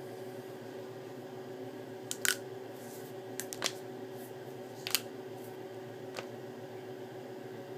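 A person's joints cracking: about six sharp pops at irregular intervals, some in quick pairs, the loudest a little over two seconds in and near five seconds.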